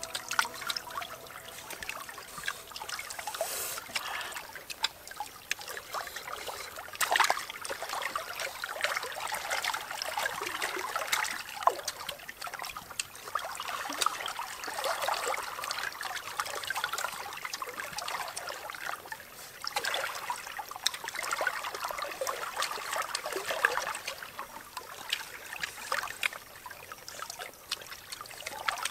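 Shallow river water trickling and lapping, swelling and easing, with many scattered short clicks through it.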